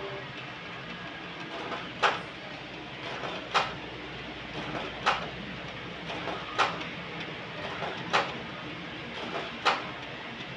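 Brother DCP-T300 inkjet printer's mechanism running steadily, with six sharp clicks evenly spaced about a second and a half apart.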